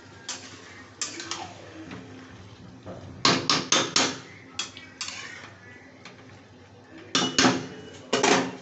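A metal spatula scraping and clanking against a metal kadai as chicken and sliced onions are stirred. The strokes are irregular, with a quick run of four about three seconds in and another cluster near the end.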